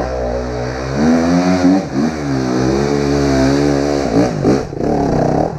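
Dirt bike engine revving hard and unevenly up a slick muddy climb, the revs rising and falling as the rear tyre spins for grip, with brief drops about two seconds in and again about four seconds in.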